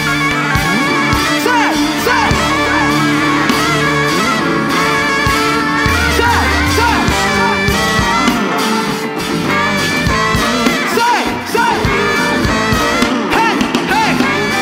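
Live band playing with saxophone, drums, keyboard and electric guitar, a vocalist singing into a microphone over the groove.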